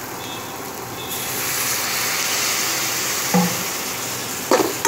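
Hot oil and spices in a metal pan sizzling with a hiss as a little water goes in, the hiss swelling about a second in and holding. A few short knocks of the steel spatula against the pan near the end.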